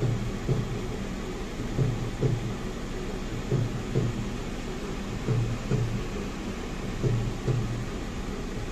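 Dhol drum played in a steady rhythm of deep beats, mostly in pairs about every second and a half, muffled through the closed windows of a car. A low steady cabin hum runs underneath.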